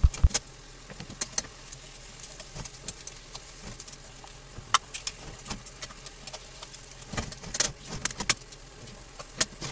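Clam and mussel shells clinking and clattering against each other and the frying pan as the seafood is stir-fried: irregular sharp clicks, loudest near the start and in a cluster about seven and a half seconds in.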